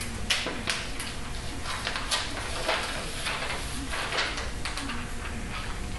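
A string of irregular light clicks and knocks from small wooden kit parts and hardware being handled during assembly.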